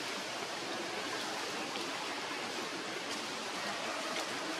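A steady, even hiss of outdoor background noise with a few faint ticks in it.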